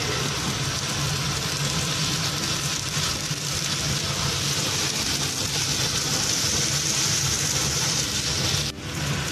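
Chopped onions sizzling in oil in a karahi as they are stirred with a spatula, over a steady low hum.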